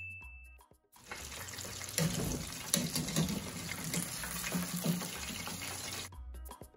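Hot oil sizzling and crackling around meat pies deep-frying in a stainless steel pot. It starts about a second in and cuts off abruptly near the end.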